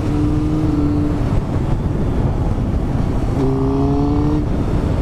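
Motorcycle engine running at steady revs while riding, over a constant low rumble of wind on the microphone. The engine note holds for about a second and a half, sinks into the rumble, and comes back for about a second past the middle.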